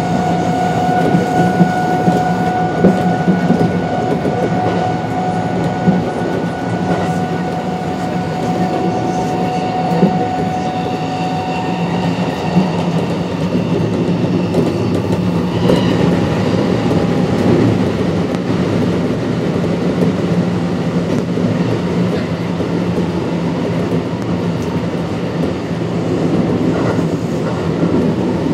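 Kintetsu 1249 series electric train running, heard from on board: steady wheel and track noise with occasional short clicks, and thin steady whines from its Hitachi GTO-VVVF inverter and traction motors. The lower whine fades about twelve seconds in, and the higher tones shift a few seconds later.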